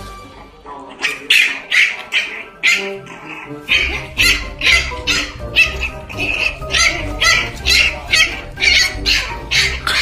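A young French bulldog puppy crying in short, high squeals, over and over at about two or three a second, over background music.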